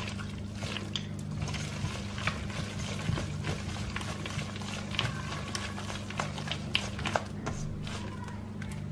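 Soft margarine, sugar and egg being mixed together in a bowl until creamy: wet stirring with scattered light clicks of the utensil against the bowl, over a steady low hum.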